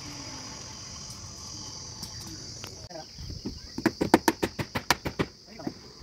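Steady high insect drone, like crickets, with a quick run of about a dozen sharp knocks or taps about halfway through.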